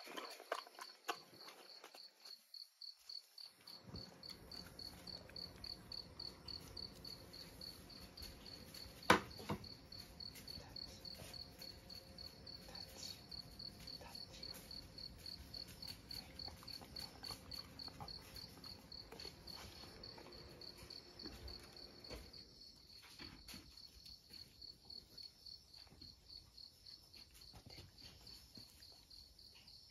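A steady chorus of chirping autumn insects, a high, evenly pulsing trill that never lets up. A single sharp knock cuts in about nine seconds in.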